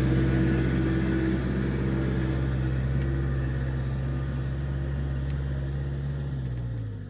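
Skid steer engine running steadily under load, gradually growing quieter, then dropping in pitch near the end as it slows.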